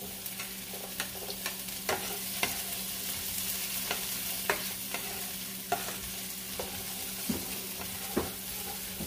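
Garlic, onion and tomato sizzling in hot oil in a nonstick pan while being sautéed, with irregular clicks and scrapes of a plastic spoon stirring them against the pan.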